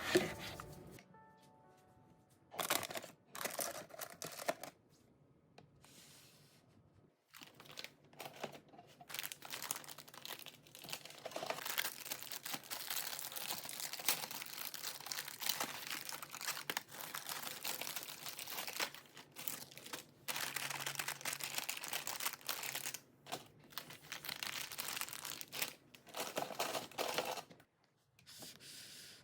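Plastic grocery packaging and bags being handled: rustling in short bursts at first, then almost without a break for about twenty seconds.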